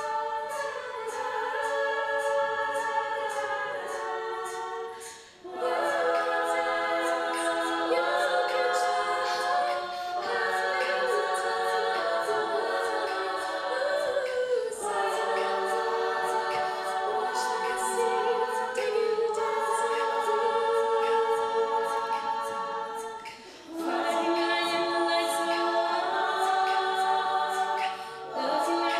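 Female a cappella group singing: a lead voice over the group's sustained backing harmonies, with a soft ticking beat in the high range. The chord breaks off briefly twice, a few seconds in and again near the end.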